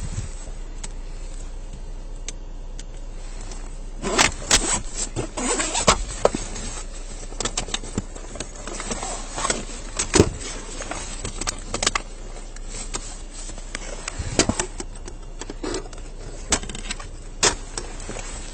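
Irregular clicks, rattles and knocks over a steady low hum, with a busier cluster about four to six seconds in.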